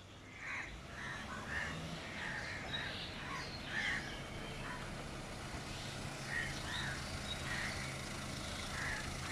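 Crows cawing: many short calls in quick runs, one after another. Underneath runs a faint low steady hum, which fits the small SUV's engine as it drives up and idles.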